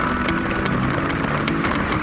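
Loud wind and road noise from a car on an expressway, picked up by a phone inside the moving car, under soft background music with held notes.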